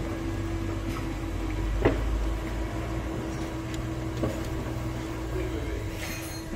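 A steady low hum with a few light clicks and knocks, about two and four seconds in, as parts are handled at a car's steering column under the dashboard. A brief hiss comes near the end.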